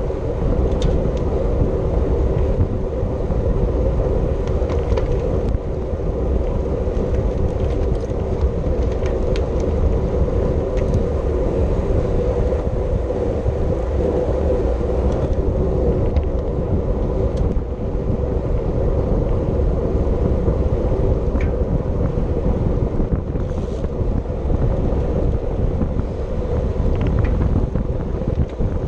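Wind buffeting the microphone of a road bike ridden at race speed, over a steady hum, with a few faint ticks.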